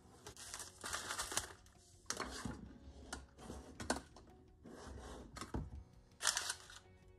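Brown kraft paper packaging, including honeycomb paper wrap, rustling and crinkling in repeated short bursts as it is handled, with a few sharp knocks of items set down on a wooden table.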